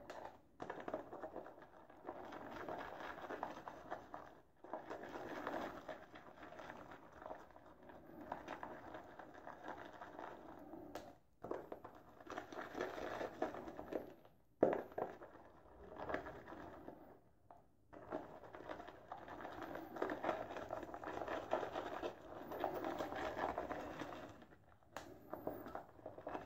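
Semogue Owners Club boar-bristle shaving brush whisking Noble Otter shaving soap lather in a bowl, with water being worked in to build the lather. The sound comes in spells broken by several brief pauses.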